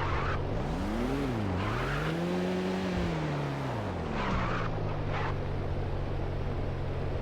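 Vehicle engine revving up and falling back several times, with a few short rushes of hiss between the revs.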